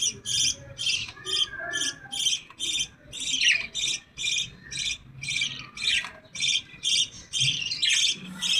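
Young birds calling: a steady, even string of short, harsh high-pitched calls, a bit over two a second.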